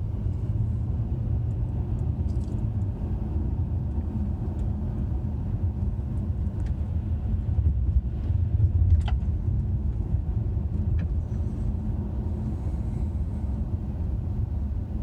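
Road and engine noise inside the cabin of a moving 2017 Honda Accord V6: a steady low rumble, with a few faint clicks and a slightly louder stretch about eight to nine seconds in.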